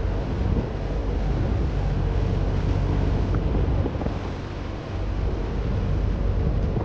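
Wind buffeting the microphone while riding in the open back of a moving 4x4, over a steady low rumble from the vehicle. The rush eases briefly about two-thirds of the way through.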